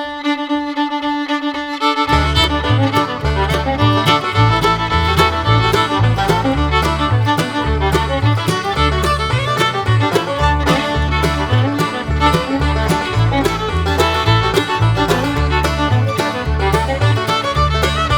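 Instrumental background music: a few held notes open it, then a bass line and a steady beat come in about two seconds in.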